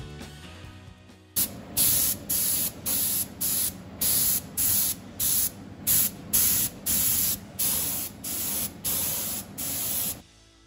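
Paint spray gun spraying leather colour onto a vinyl car seat in short, even bursts of hiss, about two a second, starting a little over a second in and stopping shortly before the end.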